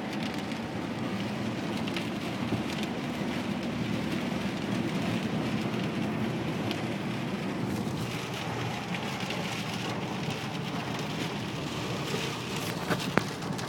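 Hard rain beating on a moving car, heard from inside, over a steady low rumble from the car on the road. A single sharp knock near the end.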